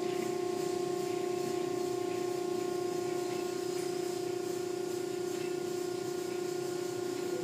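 Automatic car wash heard from inside the car: water spray and cloth brush strips washing over the car body, with a steady pitched mechanical hum from the wash machinery.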